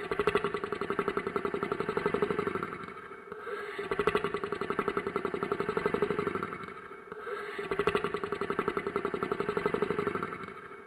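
Monster snoring sound effect: a rapid rattling snore that swells and fades, repeating about every three and a half seconds, three snores in all.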